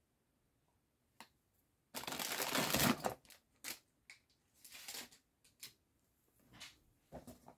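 Toy blind bags and boxes being rummaged through in a cardboard box: foil packets crinkling and items knocking together. A loud rustle comes about two seconds in, then shorter rustles and clicks.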